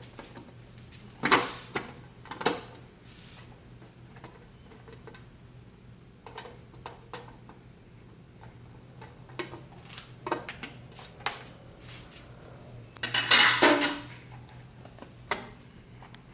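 Scattered metallic clicks and knocks, with a longer scraping rattle near the end, as the upper access panel is worked off an electric water heater.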